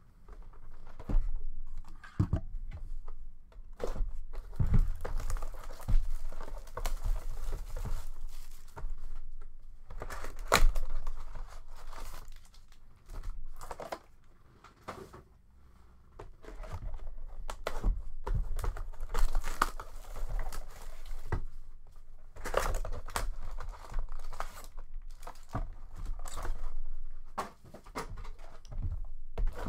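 Plastic wrapping and foil card packs being torn and crinkled while boxes of hockey trading cards are handled, in irregular crackling bursts with sharp clicks and a short lull about halfway.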